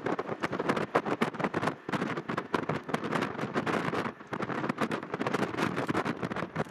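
Strong gusty wind buffeting the microphone in quick, irregular blasts, over the steady roar of a four-engine Boeing 747-400 jet on low final approach.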